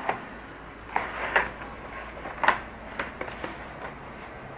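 Cardboard box being opened and its inner case slid out by hand: a few short scrapes and rustles of cardboard, the loudest about two and a half seconds in.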